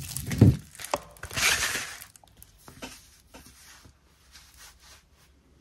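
Rustling and crinkling of a thick, plastic-film-covered diamond painting canvas being turned over and bent by hand, loudest about a second and a half in, then a few faint ticks as it settles.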